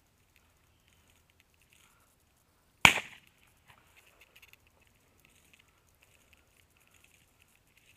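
A single shotgun shot about three seconds in, sharp with a short ringing tail, then faint crunching of footsteps through dry grass and brush.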